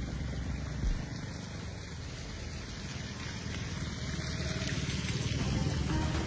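Motor scooter riding through shallow floodwater on a road, getting louder toward the end as it comes closer, over a steady rushing noise.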